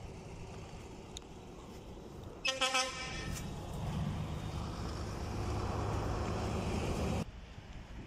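A vehicle horn toots briefly about two and a half seconds in, then a motor vehicle's engine and road noise grow louder and cut off abruptly about seven seconds in.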